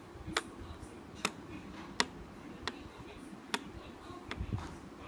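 Buttons on a keypad being pressed one at a time, about five sharp clicks under a second apart with a few softer ones near the end, as a passcode is keyed in.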